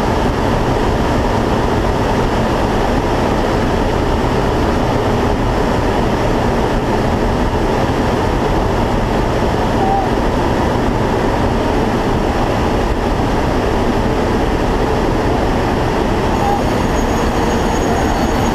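Loud steady roar inside a military transport aircraft's cabin in flight with the rear ramp open: engine drone and wind rushing in.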